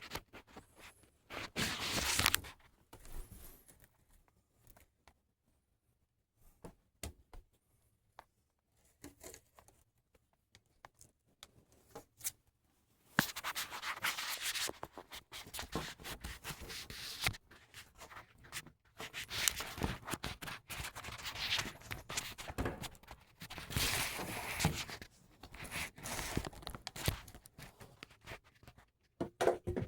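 Handling noise on the recording device's microphone: irregular rubbing and scraping with scattered clicks, heavier and almost unbroken over the second half.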